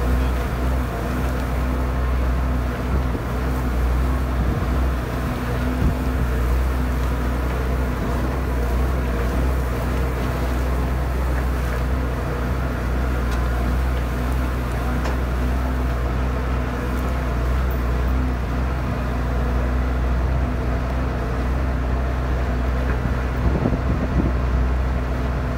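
Tractor-driven Cloverdale 500T vertical mixer running steadily, its auger chewing through a wet baleage bale of alfalfa-grass, over the steady drone of the tractor engine driving it.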